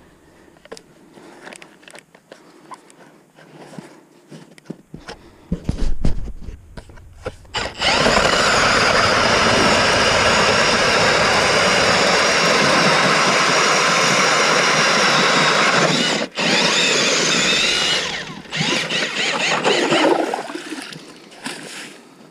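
Milwaukee M18 cordless drill driving an ice auger, boring a hole through lake ice. After a few low thumps it starts abruptly about a third of the way in and runs at a steady pitch with a brief break past the middle. It then runs unevenly before dying away near the end.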